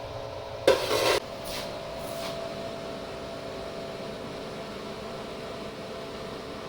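Steady machine hum made of several fixed tones. About a second in comes a short hissing burst, followed by two fainter, shorter ones.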